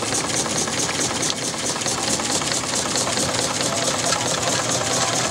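A steam launch's small steam engine running steadily under way, with a rapid, even mechanical beat.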